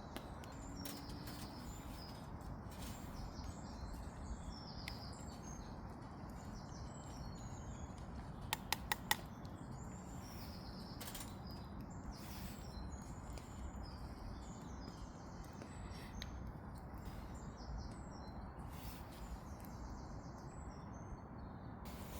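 Small birds chirping on and off over a steady background hiss, with a quick run of four sharp clicks about eight and a half seconds in.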